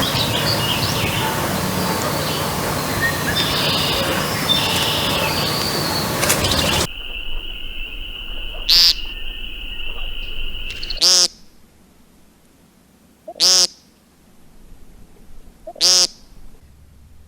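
A woodcock calling: a short, loud call repeated about every two and a half seconds, the later calls standing out against a quiet background. The first several seconds are a dense noisy stretch before the calls begin.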